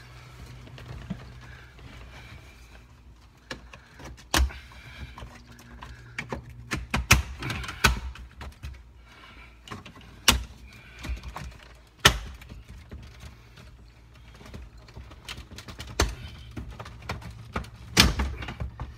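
Plastic center console trim panel of a 2018 Chevy Tahoe being worked up and pulled loose by hand, giving an irregular series of sharp clicks and knocks as its tight retaining clips snap free.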